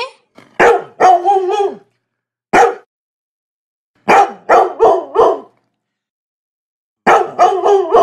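A dog barking in short bursts with pauses between: a few barks, a single bark, a run of four, then another quick run near the end.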